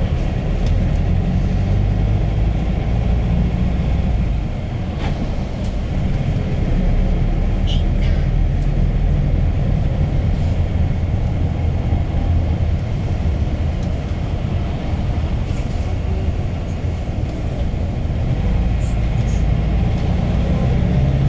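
Steady interior rumble of a GAZ Next minibus under way: engine and road noise heard from inside the passenger cabin, with a couple of faint rattles.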